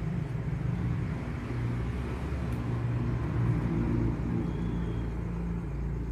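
Steady low rumble of a running engine, growing louder through the middle and easing off near the end.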